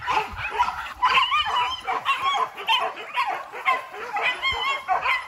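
Boar-hunting dogs yelping and baying in quick, high, wavering cries, one after another and overlapping, as they work a wild boar in the scrub.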